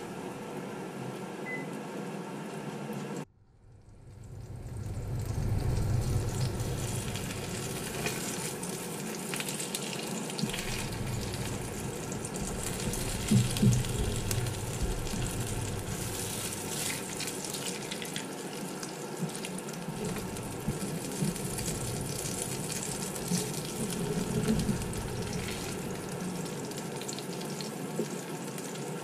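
Floured flounder fillets sizzling and crackling as they pan-fry in oil in a Vermicular frying pan. The sizzle cuts out abruptly a few seconds in, then builds back up, and a couple of brief louder knocks come near the middle as the fillets are turned with tongs.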